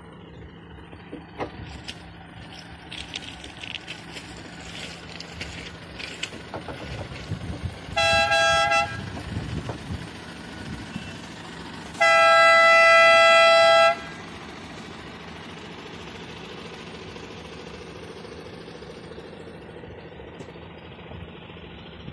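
Mercedes-Benz Unimog rail-road vehicle with Zagro rail gear running on a railway track, its diesel engine humming steadily with scattered clicks in the first few seconds. Its horn sounds twice: a short toot about eight seconds in, then a louder blast of about two seconds around twelve seconds in.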